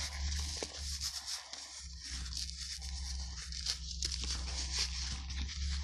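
Gloved hands rubbing and scraping at old, dirt-caked leather and loose soil, an irregular scratchy rustle close to the microphone, over a steady low hum.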